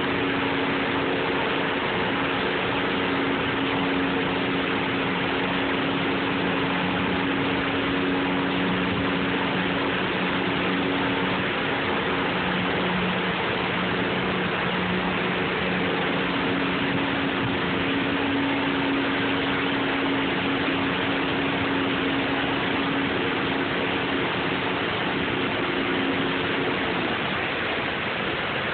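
Water pouring over a low river dam in a steady rush, with an engine running steadily underneath as a low hum; the engine hum fades out near the end, leaving the water.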